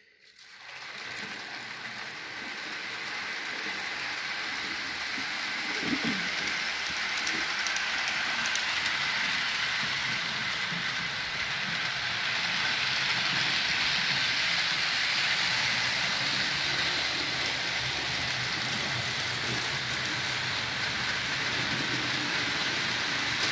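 H0-scale model freight train running on the layout: a long string of metal-wheeled wagons rolling and clicking over the track, a steady rushing clatter that grows louder over the first couple of seconds and then holds steady.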